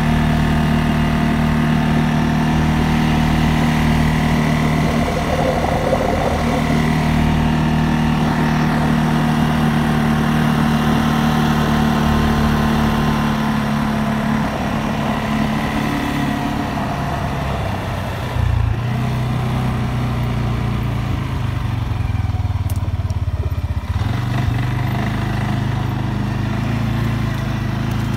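CFMOTO CFORCE 600 ATV's single-cylinder, liquid-cooled engine running steadily under way. Its note drops lower about halfway through as the machine slows.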